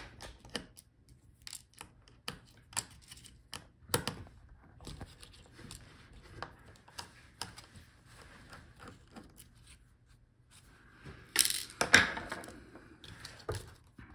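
Precision screwdriver backing out small screws from a laptop's display hinges: scattered light metal clicks and ticks. A louder clatter of parts being handled comes about eleven seconds in.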